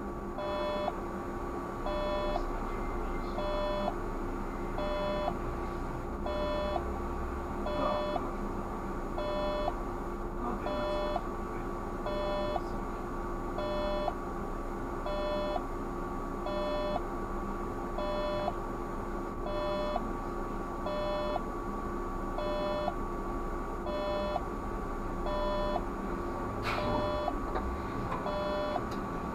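A short electronic beep repeating evenly about once a second inside the cab of a Škoda 30Tr SOR trolleybus, over a steady electrical hum.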